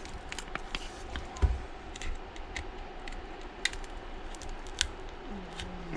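Scattered light clicks and ticks of a thin pry tool working under an iPad mini 4's glued glass screen, with a dull knock about one and a half seconds in.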